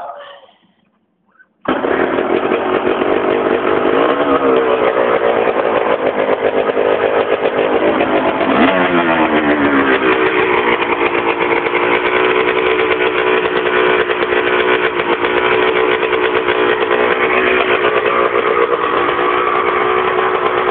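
Honda CR85 two-stroke single-cylinder dirt bike engine running, cutting in suddenly about two seconds in. It revs up and down twice, around four and nine seconds, then runs steadily.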